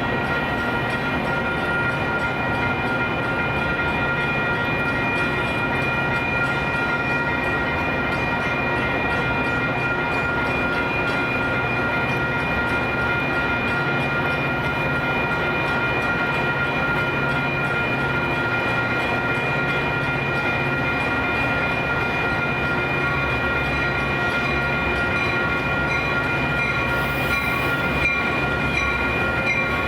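Railroad grade-crossing warning bells ringing without a break, with the steady noise of rail traffic under them as a train comes through the activated crossing.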